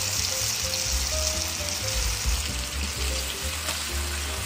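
Carrot strips frying in a wok of soy-ketchup sauce, sizzling steadily as cornstarch slurry is poured in. Background music with a pulsing bass line and short melody notes plays over the sizzle.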